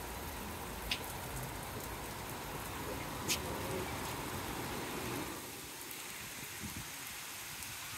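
Heavy rain falling steadily on rooftops and terraces, a constant hiss, with two sharp clicks about one and three seconds in. The rain sound eases a little past halfway.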